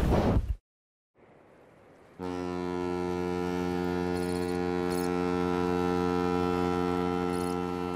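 A loud sound cuts off abruptly at the very start, then, after a moment of silence, a ship's horn sounds one long, steady blast beginning about two seconds in.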